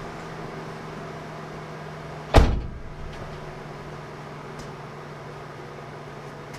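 Vauxhall Corsa C engine idling with a steady hum, newly started after a camshaft swap and running, though not perfectly. About two and a half seconds in, a car door shuts with a single loud thump.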